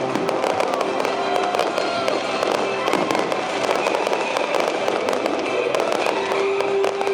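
Fireworks bursting with many rapid, irregular sharp cracks and pops, over music played through loudspeakers.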